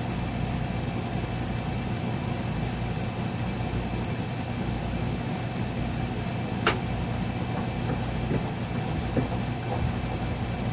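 Steady low hum in the background, with a few sharp metal clinks, the loudest about two-thirds of the way in, as tools work the end cap of a hydraulic bead breaker's cylinder.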